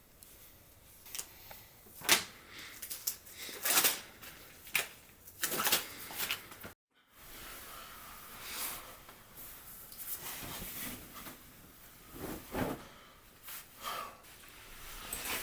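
Irregular knocks, clicks and rustles of things being handled, like drawers or cupboards being opened and shut, with a brief dropout about seven seconds in.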